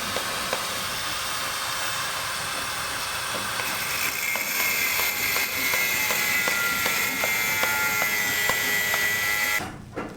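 A power tool running with a steady noise; a high whine joins it a few seconds in and the sound cuts off abruptly near the end.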